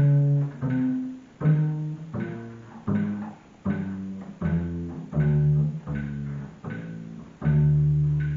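Upright double bass played pizzicato: single plucked notes, about one every three-quarters of a second, running through a D major scale exercise with position shifts. The line comes down to a longer, held low note near the end.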